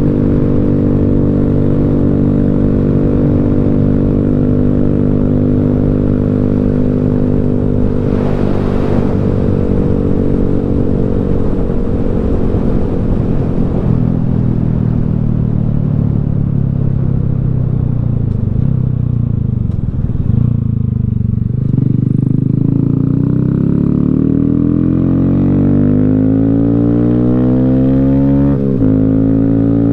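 Honda Grom's single-cylinder 125 cc four-stroke engine under way. It runs at a steady pitch at first and falls through the middle as the bike eases off. From a little past the middle the pitch rises steadily as it accelerates, with a sudden break and drop near the end, like a gear change. Wind and road noise run underneath.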